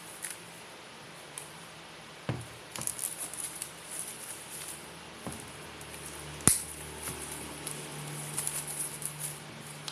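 Hands handling the packaging of a Blu-ray steelbook box set: scattered rustling and crinkling of wrapping with a few sharp knocks, the loudest about six and a half seconds in.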